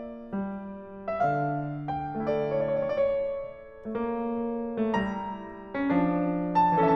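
Background piano music: notes and chords struck about every half second to a second, each ringing on.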